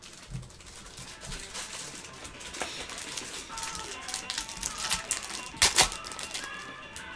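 Foil wrapper of a Panini Prizm football card pack crinkling and crackling as it is ripped open by hand, with two loud sharp crackles about five and a half seconds in.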